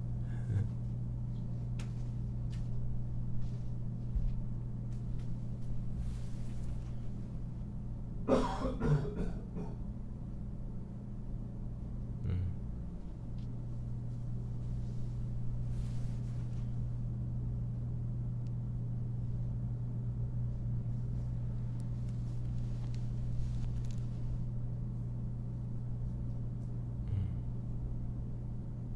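Steady low electrical hum of studio room tone with a few faint scattered clicks, and one short, louder burst of voice about eight seconds in.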